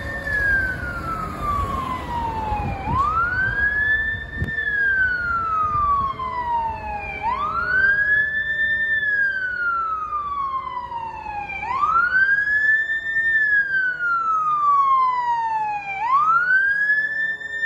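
Fire engine siren wailing. On each cycle the pitch climbs quickly to a high note, then slides slowly down, repeating about every four and a half seconds.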